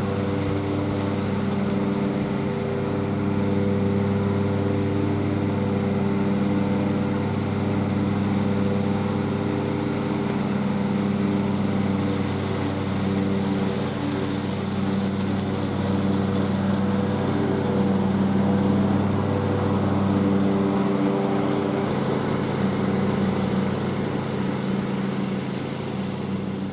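Engine of a John Deere Z345M 42-inch zero-turn mower, fitted with a mulching kit, running steadily at speed. Its tone shifts slightly about three-quarters of the way through.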